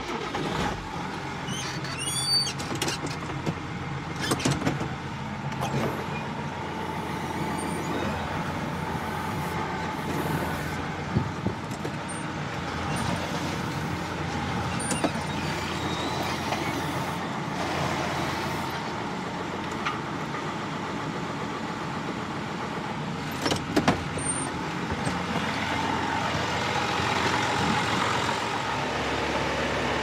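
John Deere tractor's diesel engine running steadily, with a few sharp clicks and knocks from the controls and machinery.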